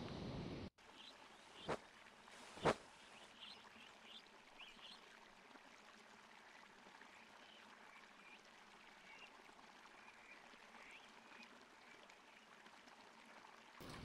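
Faint steady rush of a nearby stream, with a few faint, short, high chirps scattered through it. Two sharp clicks about a second apart come near the start.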